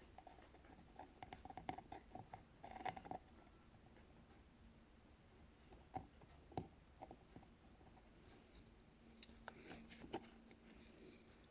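Faint clicks, taps and brief scratching of small parts and tools being handled on a workbench, between stretches of near silence; a faint steady low hum sets in near the end.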